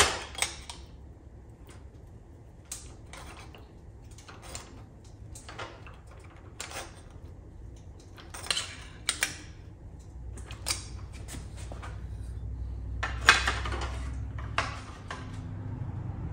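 Bench-mounted shrinker-stretcher working a strip of sheet metal: repeated sharp metallic clanks as the lever is pumped to stretch the strip into a curve, coming at uneven intervals with the loudest about 13 seconds in. A low rumble rises in the second half.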